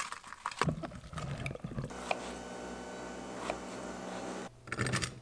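Water running and splashing into a plastic container in a stainless kitchen sink as strawberries are rinsed. Near the end come a few quick knife taps on a wooden cutting board.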